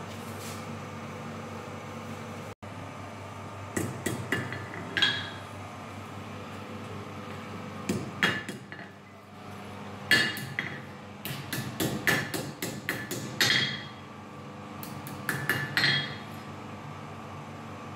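Hand hammer striking hot steel on a small anvil while forging a knife blade: several bursts of quick blows with a short metallic ring, beginning about four seconds in, over a steady low hum.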